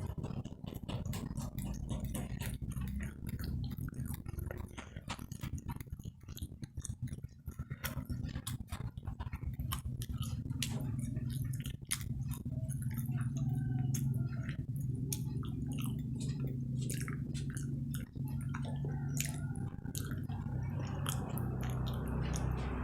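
Close-up chewing and crunching of crispy fried snacks, many short crackly crunches at an irregular pace, over a low steady hum.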